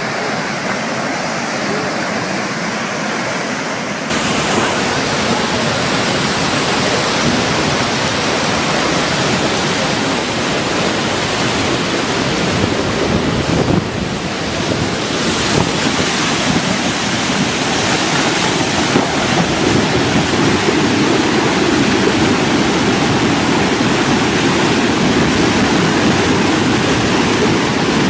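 Loud, steady rushing of fast-flowing floodwater. About four seconds in, a different recording cuts in, louder and fuller.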